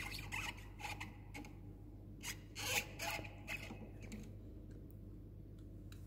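Screwdriver turning out a motorcycle handlebar bolt: a series of short, irregular metal-on-metal scraping and clicking strokes over the first three or four seconds, then little more.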